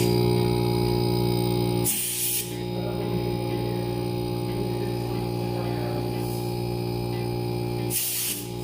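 Steady electric machine hum with a low drone and several higher tones held unchanged, broken by two short hisses of escaping gas, one about two seconds in and one near the end.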